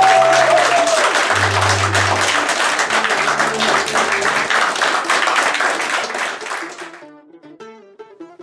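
A group of men applauding over music with a bass line and a long held note near the start. About seven seconds in the clapping stops, leaving a quieter tune of short notes.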